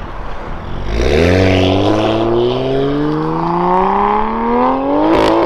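A 2020 Toyota Supra's 3.0-litre turbocharged inline-six, running through a Fi Exhaust system, accelerating hard. The engine note rises steadily for about four seconds, with a sharp crack near the end.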